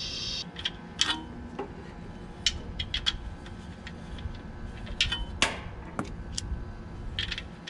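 Nitrogen hissing out through the purge hose stops about half a second in, with no oil coming out. Then come scattered light clicks and metallic taps as the brass refrigerant hose fitting and service valve on the compressor are handled.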